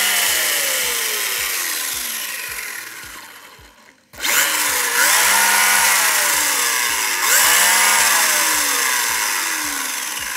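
Brushless motor and drivetrain of a Jetwood JC14EP 1/14 RC truck revved at full throttle with the wheels spinning free, the ESC set to 100%. A high whine winds up, then coasts down; about four seconds in it winds up again, dips and re-revs, then coasts down near the end.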